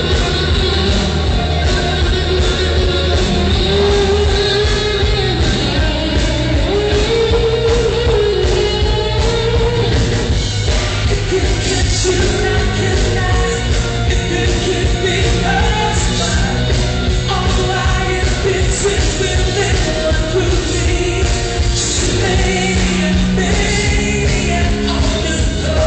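Loud rock music played live, with a singer singing and at times yelling over guitar and a steady bass.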